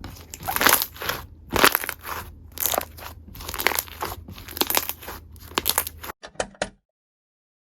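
Clear slime being squeezed and pressed by hand, crackling and popping with trapped air in repeated squishes about twice a second; it cuts off about six seconds in.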